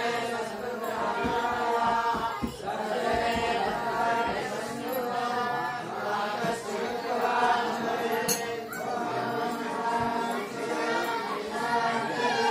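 A congregation of many voices chanting an aarti hymn in unison, in phrases about two seconds long.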